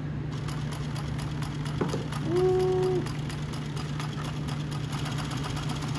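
New-Tech GC-9920D direct-drive double-needle post bed industrial sewing machine running and stitching through thick layered fabric: a steady hum with an even, rapid ticking of needle strokes.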